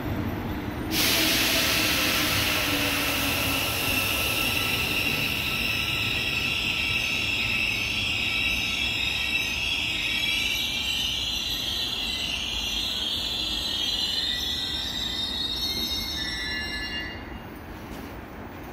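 Suin-Bundang Line electric train pulling out of the station past platform screen doors. About a second in, a loud hiss of rail noise and high wheel squeal sets in, then slowly fades as the train draws away.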